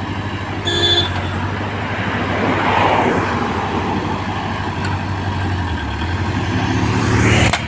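Heavy vehicle engine running steadily amid road traffic, with a brief horn toot about a second in and a rising swell of noise near the end.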